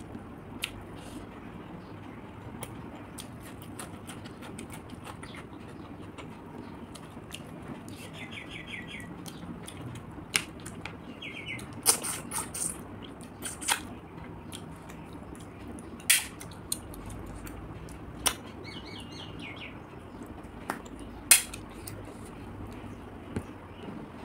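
Short, sharp sucking slurps as cooked river snails are sucked out of their shells one at a time, about a dozen spread irregularly, the loudest about twelve and twenty-one seconds in, over a steady low hum. A bird chirps in short rapid trills three times.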